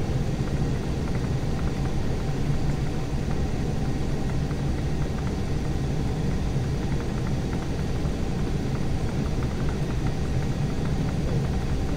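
Cabin noise inside an Embraer E175 taxiing after landing: a steady low rumble from its twin GE CF34 turbofans running at low power, with faint scattered ticking over it.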